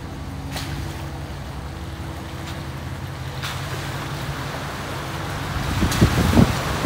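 Truck driving slowly through water running over the road inside a stone tunnel. The engine runs low and steady under the hiss of tyres pushing through the water, which grows louder partway through. A few heavy thumps come near the end.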